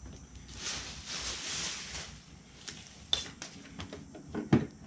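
Handling noise: a rustle, then a run of sharp clicks and knocks, the loudest a little after four seconds in, as the folding pedals of a Gotway MCM5 electric unicycle are swung down and the wheel is handled.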